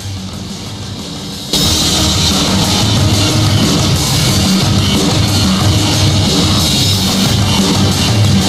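Background rock music, with no speech; about a second and a half in, it jumps suddenly much louder and fuller.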